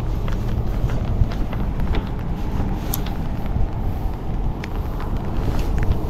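Wind rumbling on the microphone, a steady low rumble with scattered light ticks and clicks over it.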